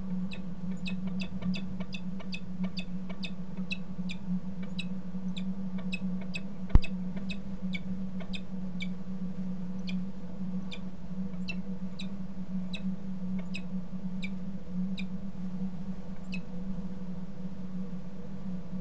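Peregrine falcon calling in short clipped notes, about three a second at first, then sparser, stopping about two-thirds of the way through, over a steady low electrical hum. A single sharp thump comes about a third of the way in.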